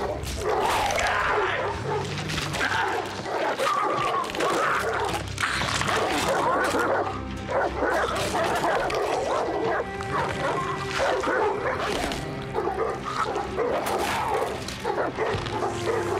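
A pack of starved hounds snarling and growling as they attack and tear at their prey, with music underneath.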